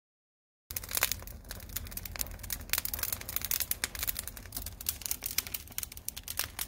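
Dense, irregular crackling and crinkling with many sharp clicks, starting suddenly about a second in.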